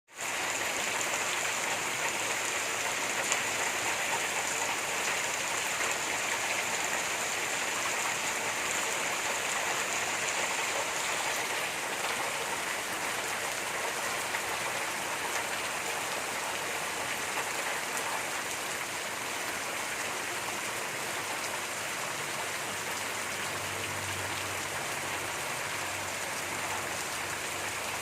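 Steady rain falling, a continuous even hiss; a faint low hum comes in near the end.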